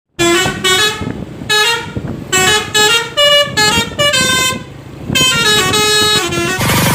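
Basuri V3 telolet horn on a Bukit Jaya bus playing its tune: several bursts of stepping musical horn notes. A short rush of noise comes near the end.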